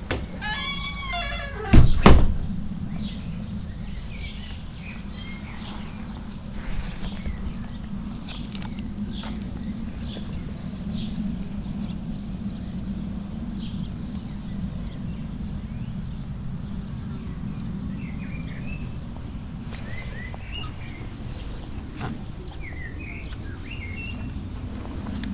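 Short bird chirps now and then over a steady low rumble. A loud thump comes about two seconds in, just after a drawn-out call with many overtones.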